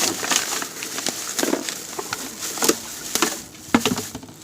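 Trash being rummaged through: irregular knocks and clatter of objects being handled and shifted, with rustling.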